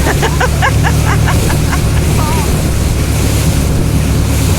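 Motorboat engine running steadily, with wind buffeting the microphone. A voice calls out briefly in the first couple of seconds.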